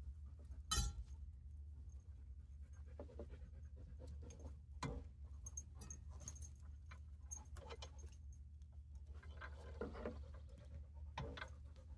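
A dog panting faintly, with scattered soft clicks and rustles from a synthetic winch rope being worked loose on its drum with pliers; one sharper click comes about a second in.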